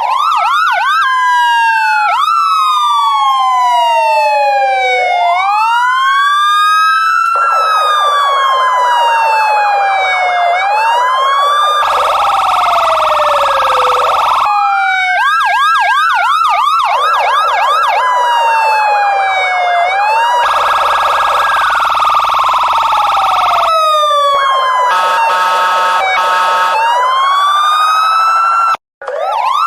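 Electronic police car siren cycling through its modes: a slow wail sweeping up and down every few seconds, a fast yelp, and a rapid warble. Harsher buzzing blasts come between them. It drops out for an instant near the end.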